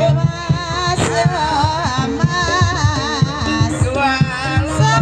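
Banyumas-style gamelan music accompanying an ebeg dance: a singer's wavering, vibrato-laden melody enters about a second in, over steady hand-drum strokes and sustained low tones.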